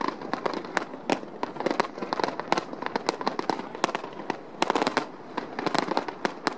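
Fireworks display going off: a dense, irregular stream of sharp pops and crackles, several each second and often overlapping.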